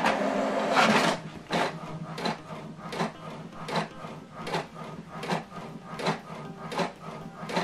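HP DeskJet inkjet printer printing a page. A loud paper-feed whir runs for about the first second, then the print-head carriage sweeps back and forth about once every three quarters of a second.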